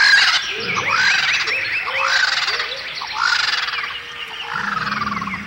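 A chorus of bird calls: many short chirps and quick runs of repeated notes from several birds at once.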